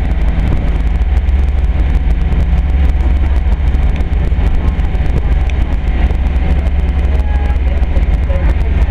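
Engine of a cruise ship's tender boat running steadily under way, a loud, low, even drone heard inside the enclosed passenger cabin.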